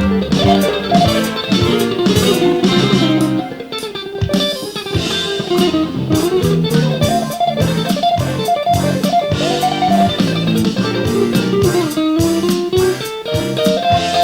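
Electric guitar played clean through a Marshall 1959HW, a handwired 100-watt Plexi amplifier head, picking a continuous run of single notes and chords.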